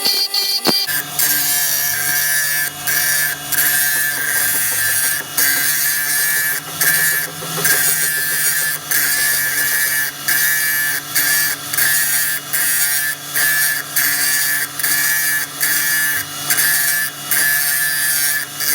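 Metal grinding on rusted gear teeth: a rough abrasive rasp in regular strokes, about one and a half a second, over a steady low motor hum.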